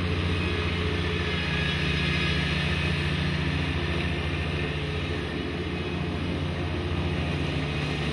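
Ferris zero-turn ride-on mower running steadily while cutting grass: a constant low engine drone that holds an even level.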